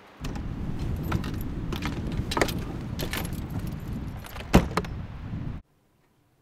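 A set of keys jangling and clicking over a steady low rumble on the microphone, with one sharp knock about four and a half seconds in; the sound cuts off suddenly near the end.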